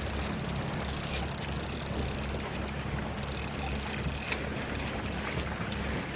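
Boat engine running steadily under wind and water noise, with a fishing reel being cranked in two spells of high, rattling whir while a hooked wahoo is reeled toward the boat.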